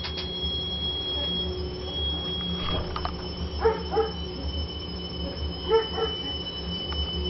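Baxi Eco5 Compact 24F gas boiler giving a steady high whistle over a low hum. The owner hears this whistle set in once the heating water reaches about 73–75 °C and does not know its cause. Twice, a pair of short squeaky yelps cuts in, louder than the whistle.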